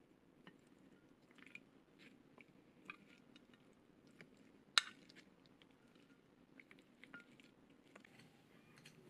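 Chopsticks and a metal spoon tossing mayonnaise-coated lotus root slices in a glass dish: soft squelching and scattered light clicks, with one sharp clink of a utensil against the glass about five seconds in.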